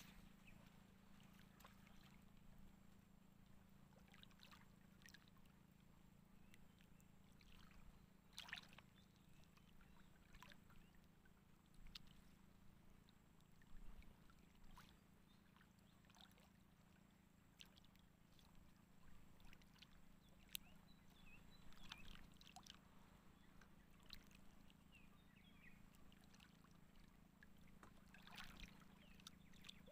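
Near silence: a faint steady low hum with a few faint, scattered ticks.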